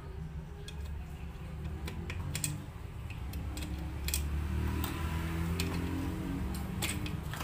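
Scattered light clicks and taps of tools and small metal parts being handled while a foot pump's release valve is taken apart, over a steady low hum. There is a sharper click at the very end.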